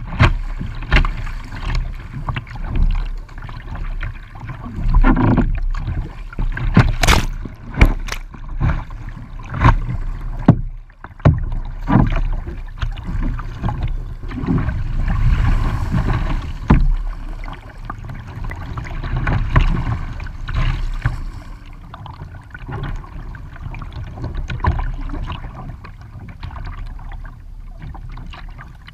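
Water slapping and splashing against the plastic hull of a sit-on-top kayak paddled through choppy water, in irregular loud surges, with the dip and pull of the paddle strokes.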